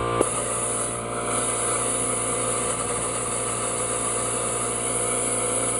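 Steady rush of compressed air blowing through an open RV tap, driving out water left in the line as the water lines are blown out for winter.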